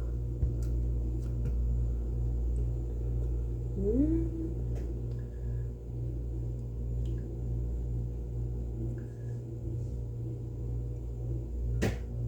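Kitchen items handled quietly while an ingredient is put into a cup. There is a steady low hum, scattered faint clicks, a short rising squeak about four seconds in, and a sharp knock near the end.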